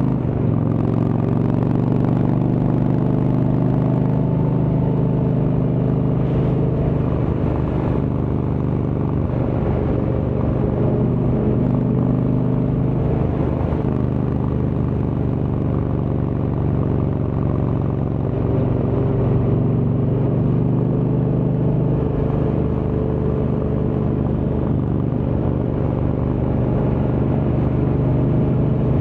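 Indian Chieftain's Thunderstroke V-twin engine running steadily through a Freedom Performance exhaust, its pitch drifting a little up and down.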